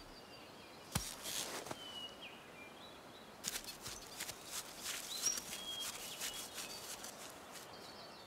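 Quiet forest ambience with small birds chirping, a soft thump about a second in, then light taps and rustles in the middle of the stretch.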